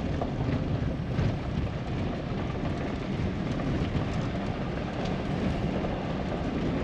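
Pickup truck driving: steady engine and road noise, even throughout.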